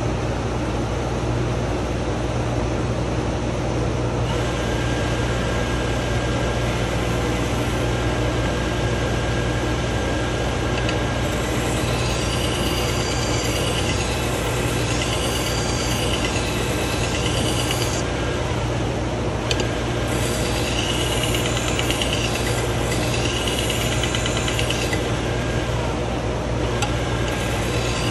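AMK-75 belt sharpener running with a steady motor hum while the steel edge of a Shun kitchen knife is drawn across the moving abrasive belt, a rasping hiss with a wavering high scrape. The blade is worked in long passes that stop briefly twice when it is lifted off, polishing the edge.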